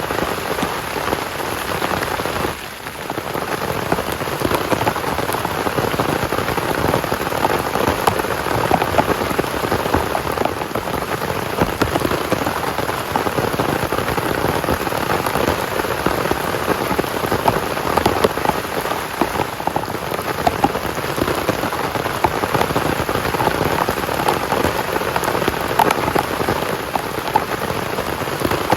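Heavy rain falling steadily, a dense patter of drops, briefly quieter about three seconds in.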